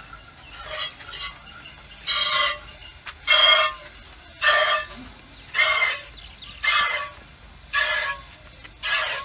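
Cow being milked by hand into a steel pail: a hissing squirt of milk hits the metal about once a second, each with a short ringing note from the pail.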